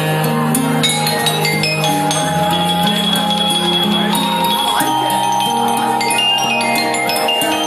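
Vibraphone played with mallets, melody notes ringing on over low bass notes and light clicking percussion.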